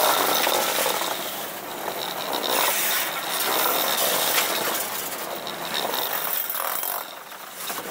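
Loaded grain hopper cars of a freight train rolling past close by: steel wheels on the rails rumbling and clanking, swelling and easing as the cars go by, with a thin high whine coming and going.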